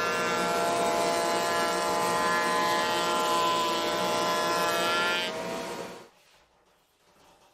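Table-mounted router running at speed with a steady high whine while a cherry board is pushed past the bit, with the rush of the cut underneath; the sound fades out about five to six seconds in, leaving near silence.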